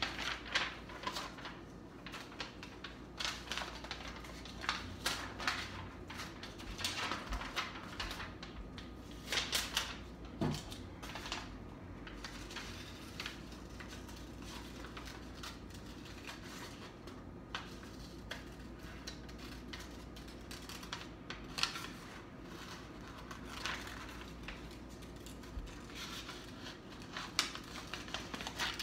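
Scissors cutting paper: irregular runs of blade snips and clicks with paper rustling, separated by short pauses.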